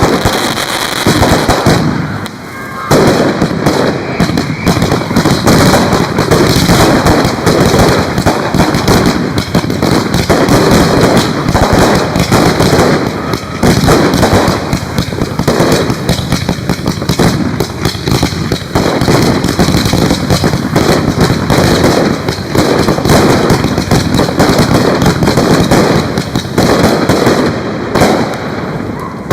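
Fireworks going off in a dense, near-continuous run of loud bangs and crackles, with a brief lull about two seconds in.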